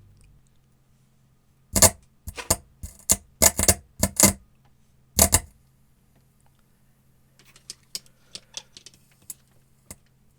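Homemade transistor power amplifier idling with a low steady hum from its speaker, while a cluster of loud sharp clicks and knocks comes from about two to five seconds in, followed by a run of fainter ticks near the end.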